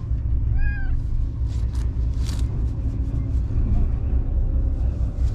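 White stray cat meowing once, briefly, about half a second in, over a steady low rumble of wind on the microphone. A few short rustles follow.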